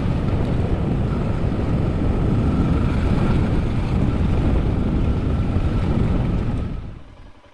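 Suzuki DR650 single-cylinder dual-sport motorcycle riding a dirt track, its engine running under heavy wind rush on the microphone. The noise falls away sharply near the end.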